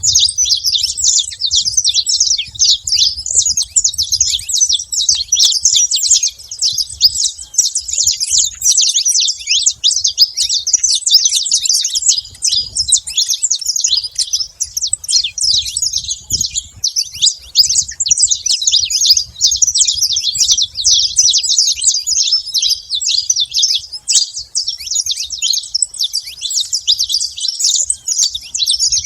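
Saffron finches chirping and singing in a dense, unbroken chatter of quick, high chirps.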